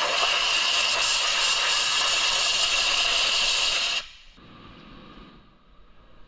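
Compressed-air blow gun blasting a steady, loud hiss at the freshly welded and ground rocker panel seam, clearing off dust; it cuts off sharply about four seconds in.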